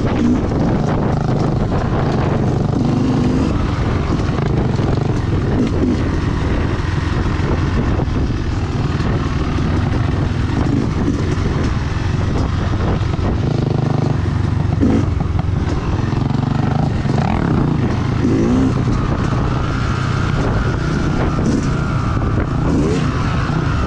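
Yamaha YZ250X two-stroke dirt bike engine running on a trail ride, its pitch stepping up and down with throttle.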